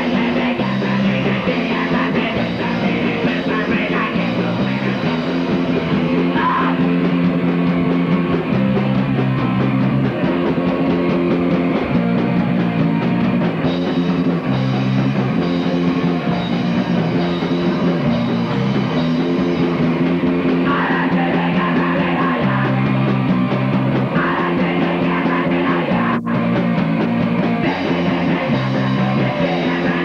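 Punk rock band playing live: distorted electric guitars, bass and drums with a singer, loud and steady, with a stepping bass line. A single sharp click near the end.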